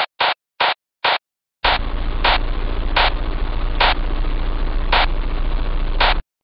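Static noise: four short bursts of hiss with dead silence between them, then a steady hiss over a low hum with louder bursts about once a second, cutting off suddenly near the end.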